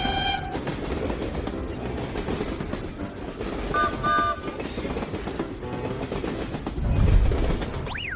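Train sound effects: a continuous rolling rumble with clickety-clack of wheels on rail joints, two short horn toots about four seconds in, and a loud low rumble swelling about seven seconds in. Near the end a whistle glides steeply downward.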